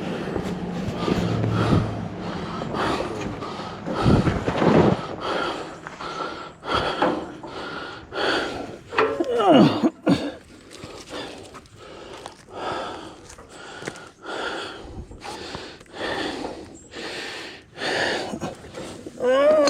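Irregular clatter, knocks and scraping as heavy portable-sawmill gear is handled and packed up, mixed with effortful breaths and grunts, and a short falling squeal about nine seconds in.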